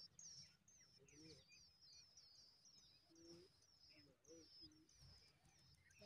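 Faint, high-pitched cheeping from songbird nestlings begging for food, short wavering chirps repeated about three to four times a second.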